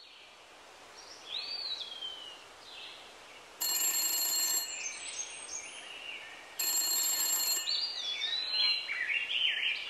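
A telephone bell rings twice, each ring about a second long and about three seconds apart, over birds chirping in short rising and falling calls.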